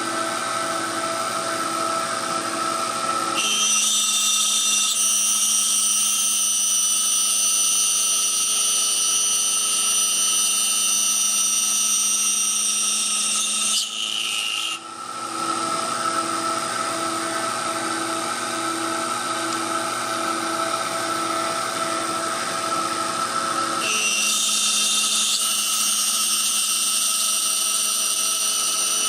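Small CNC milling machine running steadily while machining a wooden ring insert, its spindle giving a constant whine. A second, higher-pitched whine joins about three seconds in, drops out with a brief dip in level around fourteen seconds, and comes back near the end.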